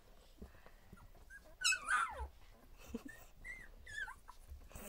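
Two-week-old border collie puppies whimpering: a high-pitched cry that slides down in pitch about one and a half seconds in, the loudest sound, then a few shorter whines near the end.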